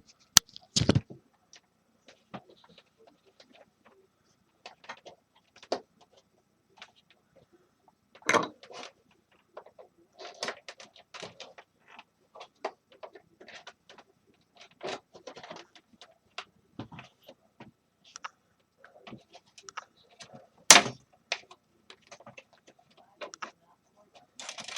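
Hand work taking a space heater apart: scattered clicks, taps and rattles of screws, tools and small parts being handled, with a few sharper knocks near the start, about a third of the way in, and near the end.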